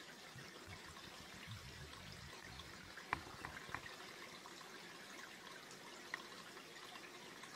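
Faint, steady forest background hiss like distant running water, with a few short faint ticks, the loudest about three seconds in.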